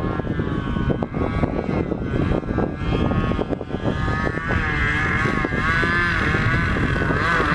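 Radio-controlled model lawnmower airplane flying low, its motor and propeller giving a steady whine that dips and rises in pitch as it passes, climbing higher over the last few seconds. Wind rumbles on the microphone underneath.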